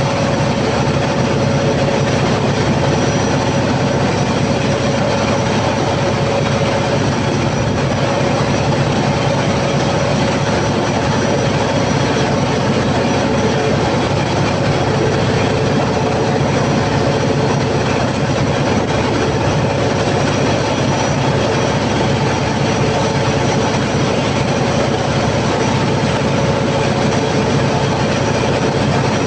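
Cummins KTA50 V16 turbocharged diesel of a 750 kW generator set running steadily at constant speed, a loud even drone with a steady whine over it, on load test after a general overhaul.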